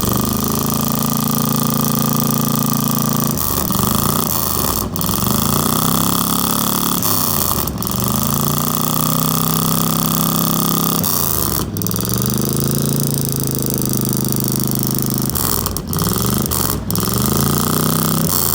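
Engine running through an aftermarket Miller exhaust, held steady and revved briefly about four times, its pitch swinging each time.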